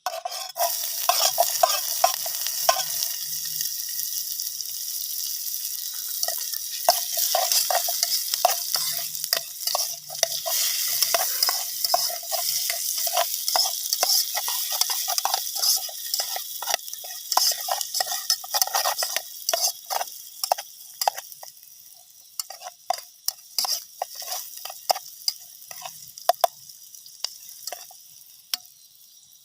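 Food sizzling in a pan while a utensil stirs and scrapes, with many short clicks over a steady hiss. The sizzle dies down over the last few seconds, leaving scattered scrapes.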